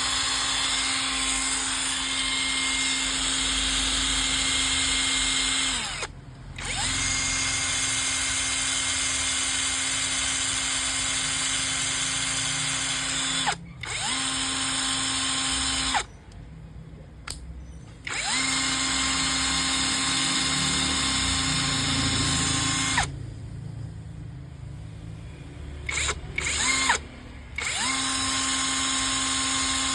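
Makita cordless drill running at a steady speed with a high whine, stopping and restarting several times: brief cuts about six seconds in and near the middle, then longer pauses of about two and about four seconds. Each restart is heard as the whine rising up to speed.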